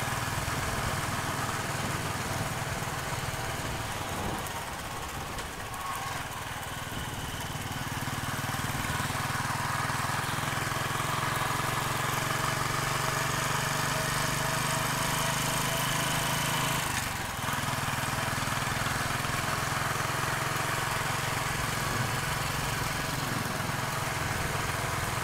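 Motorcycle engine running steadily under way, with road noise, dipping briefly about two-thirds of the way through.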